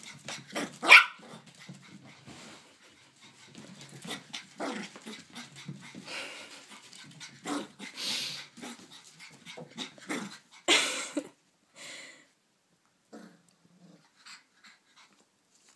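Blenheim Cavalier King Charles Spaniel puppy giving short barks and growls with scuffling in between; the loudest barks come about a second in and around eleven seconds, and it grows quieter and sparser toward the end.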